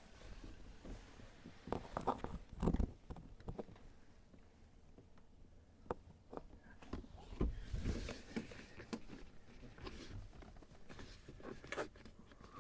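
Scattered clicks, knocks and rustling of a car's plastic interior door panel being handled and pressed, as its retaining pins are worked into their slots. The loudest knocks come about three seconds in and about halfway through.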